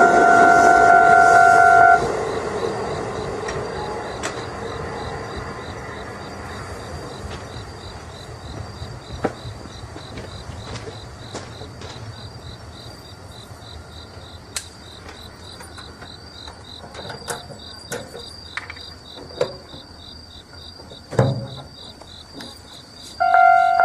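A railway level-crossing warning bell rings over the noise of a train, then cuts off about two seconds in. The train noise fades away over several seconds, leaving crickets chirping steadily with scattered faint clicks and a brief thud near the end. Just before the end the crossing bell starts ringing again.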